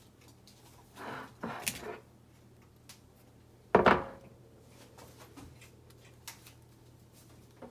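Quiet room with a few handling sounds: a short rustle and scrape about a second in, one sharp knock near the middle, and faint small clicks.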